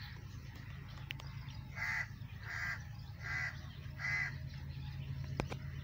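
A crow cawing four times in a steady run, about two-thirds of a second apart, over a steady low hum.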